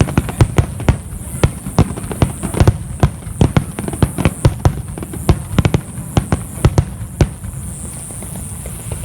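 Fireworks going off in a rapid barrage of sharp bangs, several a second, that stops about seven seconds in.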